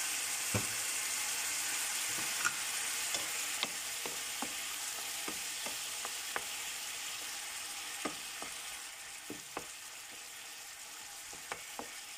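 Marinated chicken sizzling in sauce in a nonstick frying pan, with a wooden spatula scraping and clicking against the pan as it is stirred. The sizzle gets quieter about nine seconds in.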